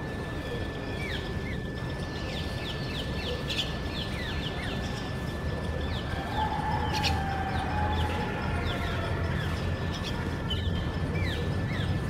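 Birds chirping: many short, quick, falling chirps throughout, with one longer, lower call lasting over a second about six seconds in. A steady thin high tone sits under them.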